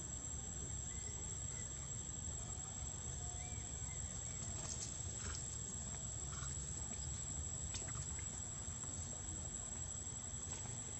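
Outdoor ambience: a steady high-pitched insect drone over a constant low rumble, with a few faint chirps and several sharp clicks.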